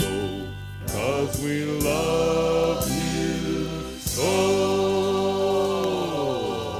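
Music played from a vinyl record, with voices singing long held notes over a band. The long note in the second half slides down in pitch near the end.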